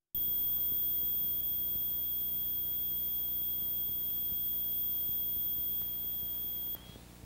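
A steady, high electronic tone with a fainter, even higher whine above it and a low hum beneath, all starting abruptly and cutting off suddenly near the end. It is laid on the audio track of a 1980s videotape during its title card, and a quiet tape hiss remains after it stops.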